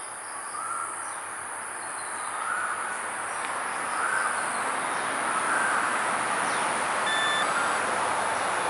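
Walkera V450D03 electric RC helicopter spooling up: the motor and rotor make a hiss that grows steadily louder. Short chirps recur about once a second over it.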